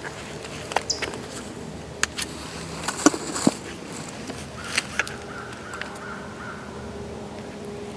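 Crow caws and a distant wild turkey gobbling back at them, with sharp clicks of nearby handling.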